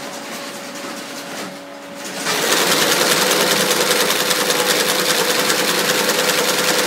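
XS0012 lockstitch moccasin sewing machine with its motor humming, then starting to stitch leather about two seconds in: a fast, steady, even clatter.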